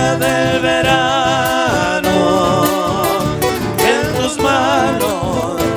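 Live Argentine folk music: sung notes held with vibrato over strummed guitars, with a bombo legüero drum keeping the beat.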